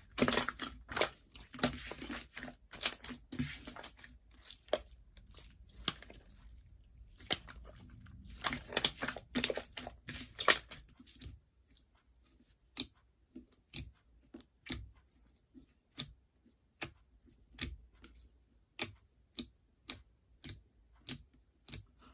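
Slime being squished and stretched by hand: dense, crackling squelches in the first half, then single sticky clicks or pops about once or twice a second.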